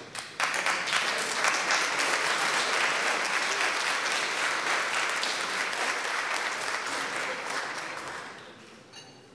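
Audience applauding: dense clapping that starts abruptly about half a second in and dies away over the last second or so.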